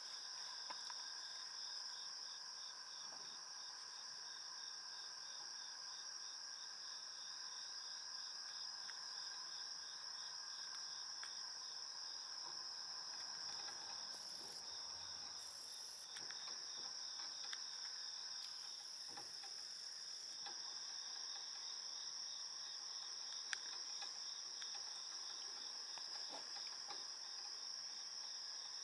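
Night insect chorus of crickets or katydids: a steady high trill with a fast pulsing chirp beneath it, unbroken throughout. A few faint clicks and scratches sound over it.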